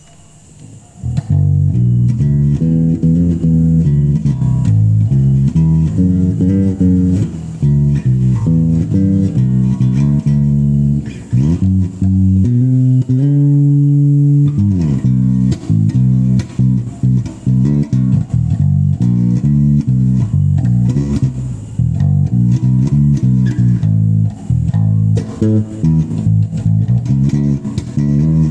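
Bass guitar played solo as a sound check: a steady run of low plucked notes, starting about a second in, with sliding notes near the middle.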